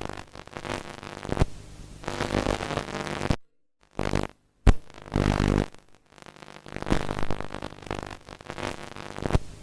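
Harsh, buzzing electronic drone with static hiss, like a corrupted broadcast signal. It cuts out abruptly to silence several times in the middle, with a few sharp clicks.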